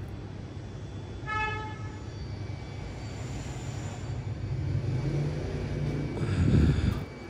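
Street traffic: a short horn toot about a second in, then a vehicle's engine rumble that grows louder and peaks near the end as it passes.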